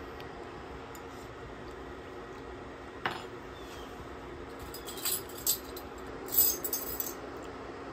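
Metal measuring spoons jangling and clinking together in two short bursts, about five and six and a half seconds in, after a single light tap about three seconds in, over a steady low hum.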